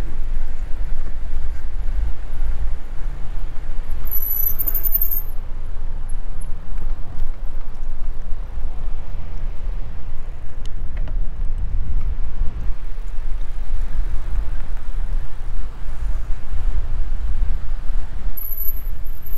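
Wind rumbling and buffeting on the microphone during a bicycle ride, over a faint hiss of rolling. A brief high squeal comes about four seconds in, and a thin high tone near the end.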